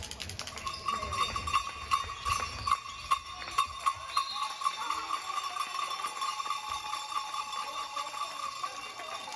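A handball bouncing and players' shoes knocking on a sports-hall floor, with sharp knocks in the first few seconds. Over it runs a steady, slightly pulsing high tone from about a second in.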